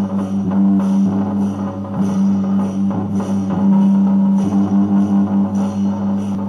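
Beiguan ensemble music: a sustained low tone under a steady beat of percussion strikes, about two a second.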